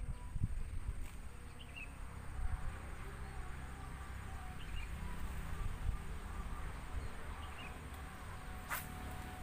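Outdoor pond-side ambience: wind rumbling on the microphone, with a few short bird chirps every few seconds over a steady high insect drone, and one brief sharp sound near the end.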